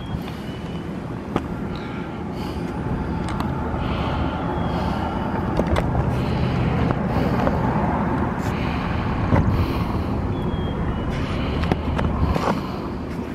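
Outdoor background rumble, swelling in the middle and easing near the end, with scattered clicks of footsteps on a stone walkway.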